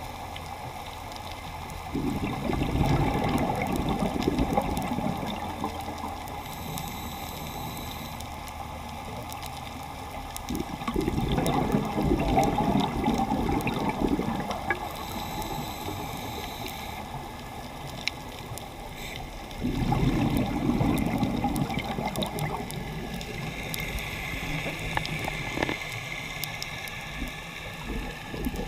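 A scuba diver's exhaled bubbles rushing out of the regulator underwater, in three long bursts of bubbling about nine seconds apart with quieter water noise between breaths.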